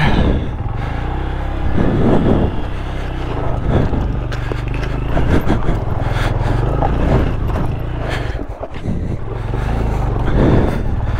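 Honda Grom's small single-cylinder engine running at low revs, blipped up in short revs every second or two while the rider tries to get the bike moving again on a steep, loose-rock climb after losing momentum.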